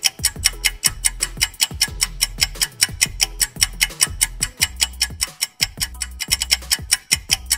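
Clock-ticking countdown sound effect, about five sharp ticks a second, over a low bass line: the timer for thinking of a riddle's answer.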